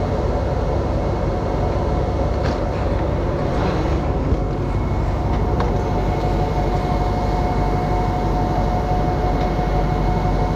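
A tractor's diesel engine running steadily, with a steady higher whine joining about halfway through and a few faint clicks.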